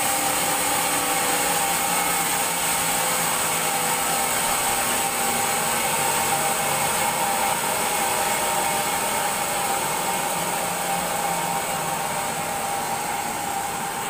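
Sawmill band saw running steadily: an even whirring hiss with a high whine held at one pitch.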